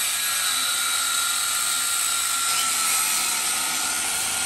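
A power tool running steadily: a high, even whine over a loud hiss, with no pauses or changes in speed.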